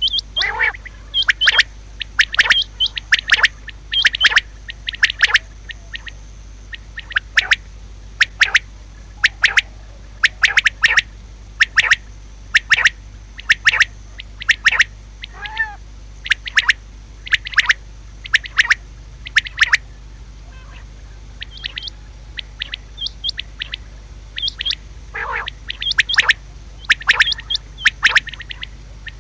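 Female common quail calling: quick clusters of short, sharp chirps, repeated all through, with a few lower, curving calls among them.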